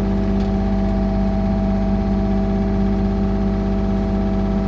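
Yanmar excavator's diesel engine running steadily at constant speed, heard from the operator's seat, with an even hum that does not change.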